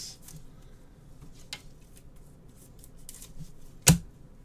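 Trading cards being handled, heard as faint scattered ticks and light rubbing, with one loud, sharp click near the end.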